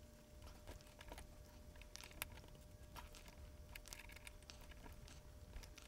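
Faint, scattered light clicks and handling noises from hands gripping and turning a metal three-jaw lathe chuck, with one sharper tick about two seconds in.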